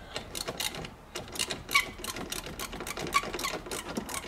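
Ratchet spanner clicking in quick, uneven runs of short strokes, slowly undoing a stubborn nut behind a classic Mini's dashboard.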